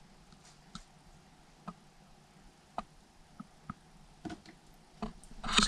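Faint, irregular short ticks and clicks, about half a dozen spread unevenly, then a louder burst of rustling, clattering noise near the end.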